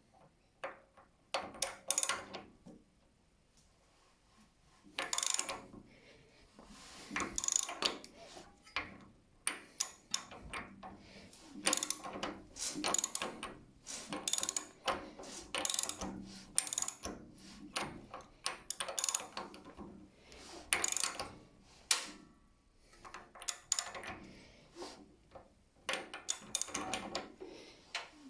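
Irregular bursts of mechanical clicking and ratcheting, with short pauses between them.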